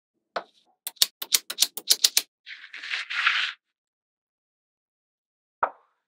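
Small neodymium magnetic balls snapping against each other: one click, then a quick run of about ten sharp clicks, then a second of rustling as the magnet panel slides. After a pause, one more click near the end.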